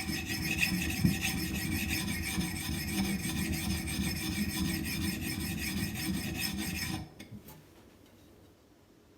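Sharpening stone rubbed in quick, steady strokes along an axe edge, a gritty rasp as it grinds out file scratches and works the burr. It stops suddenly about seven seconds in, followed by a couple of faint knocks.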